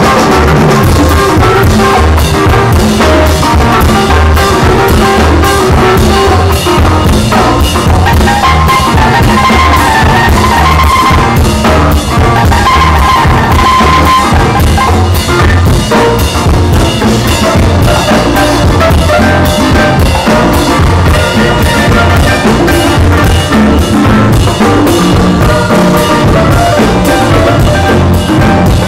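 Live band playing loud music: acoustic guitars over a drum kit and timbales, with a steady driving beat and cymbal strikes.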